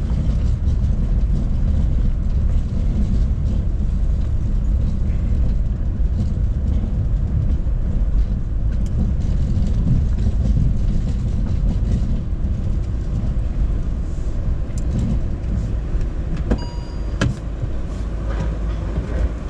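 Steady low rumble of a van's engine and cab, heard from inside the cab. A short high beep sounds near the end.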